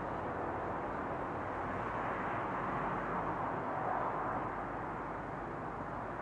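Night-time outdoor ambience: a steady distant rushing noise that swells slightly in the middle and eases again near the end.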